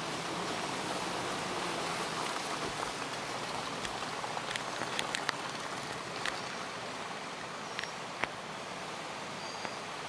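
Steady rain hissing, with a few drops ticking sharply on a nearby surface around the middle.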